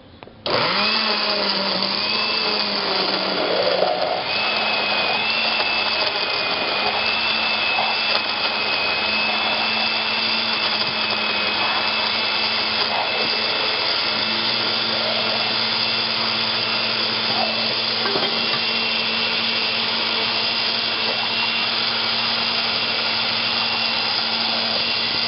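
Countertop electric blender running at full speed, grinding tomato, onion and garlic in chicken broth into a smooth purée. It switches on about half a second in with a steady motor hum and a high whine, and stops abruptly at the very end.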